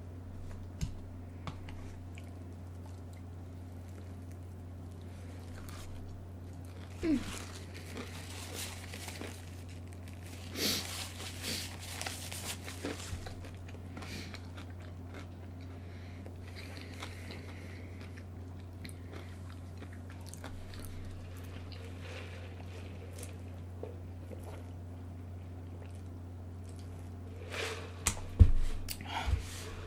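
A person biting and chewing food close to the microphone, with bursts of chewing around a third of the way in and a few louder knocks near the end, over a steady low hum.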